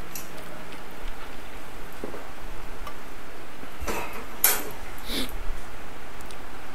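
Kitchen clatter of dishes and utensils being handled, with a few sharp clinks about four and five seconds in over a steady background hiss.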